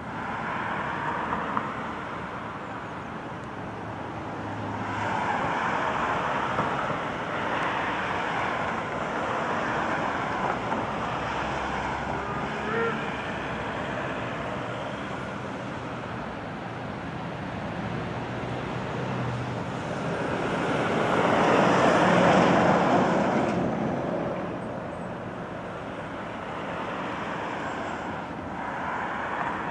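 Outdoor road-traffic noise, swelling and fading as vehicles pass, loudest about two-thirds of the way in.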